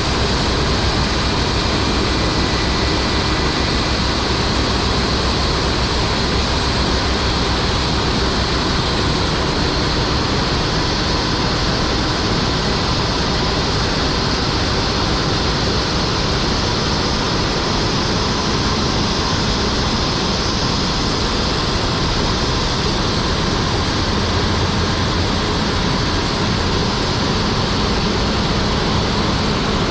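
Heavy diesel farm machinery running steadily under load: a constant engine drone with a rushing noise over it, unchanging throughout.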